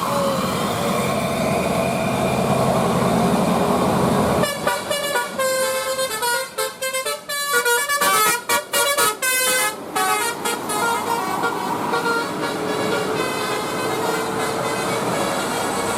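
Bus 'telolet' basuri musical air horn playing a quick tune of changing notes for several seconds, starting about four seconds in, over the steady noise of a passing bus.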